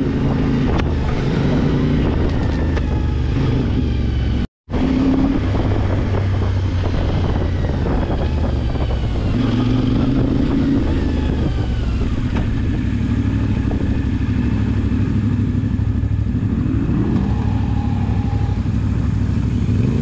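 CFMoto 450MT motorcycle's 449 cc parallel-twin engine running while riding, the revs rising and falling a few times, with wind noise over the microphone. The sound cuts out completely for a moment about four and a half seconds in.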